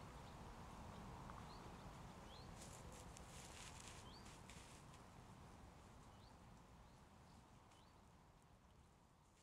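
Faint snuffling and rustling of a badger rooting through dry leaf litter for food, busiest about three to four seconds in. Short, high, rising bird chirps come and go, and everything fades away gradually over the second half.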